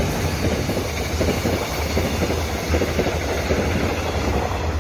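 Korail electric locomotive and Mugunghwa-ho passenger coaches passing close by at speed: a steady, loud rumble with a dense rapid clatter of wheels on the rails.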